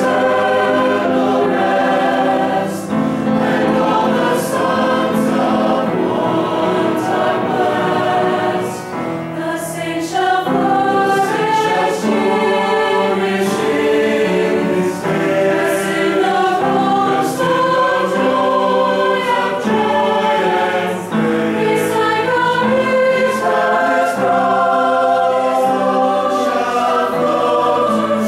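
Mixed choir of men and women singing in harmony, sustained chords moving from phrase to phrase.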